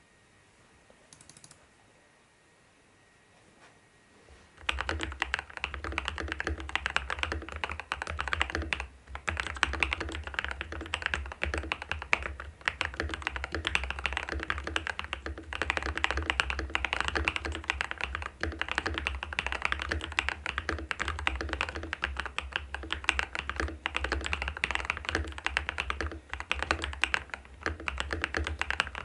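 Steady, fast typing on an RK R87 mechanical keyboard with pre-lubed Pryzma Java linear switches, PBT keycaps and an aluminium plate, damped by case and PCB foam and lubricated stabilisers. The typing starts a few seconds in, after near silence, and runs on in dense keystrokes with a few short pauses.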